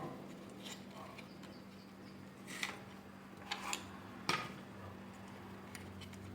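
Plastic parts of a vacuum cleaner being handled during assembly: a few light clicks and knocks, the sharpest about four seconds in, over a steady low hum.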